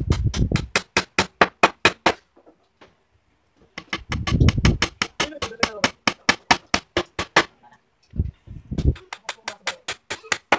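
Hammer driving nails into a wooden sofa base frame: three runs of quick, evenly spaced blows, several a second, with short pauses between them.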